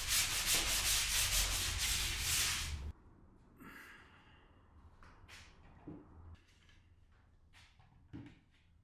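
Hand-sanding the edges of the blade slot cut in a fibreboard tabletop: quick back-and-forth rubbing strokes that stop abruptly about three seconds in. After that come a few faint knocks and rustles from wooden pieces being handled.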